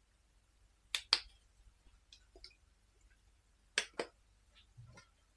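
Kitchen utensils clinking: two quick pairs of sharp clinks about three seconds apart, with a few faint ticks between.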